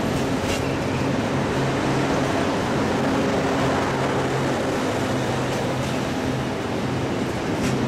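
Loram C21 rail grinder train (Network Rail C2101) passing close by: a steady engine drone over loud rolling wheel-and-rail noise, with a couple of sharp clicks, one soon after the start and one near the end.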